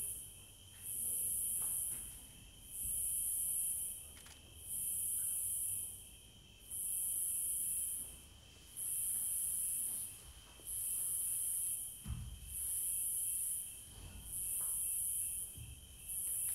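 Insect-like high hissing that swells and fades in regular pulses, about one every two seconds, over a steady high whine.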